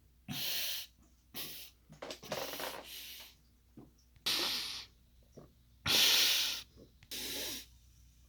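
A man breathing hard in heavy, noisy gasps, six of them, each about half a second long, while struggling to shotgun a can.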